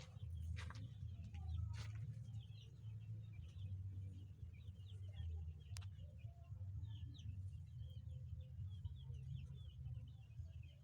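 Poultry chicks peeping: many short, quick chirps overlapping, faint, over a low steady rumble, with a few sharp clicks.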